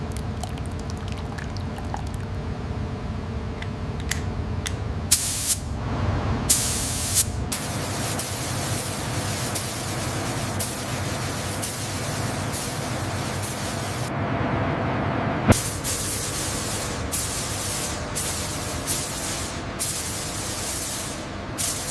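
Paint spray gun hissing, first in a few short bursts, then in one long continuous pass, then in a string of short bursts, over a low steady rumble.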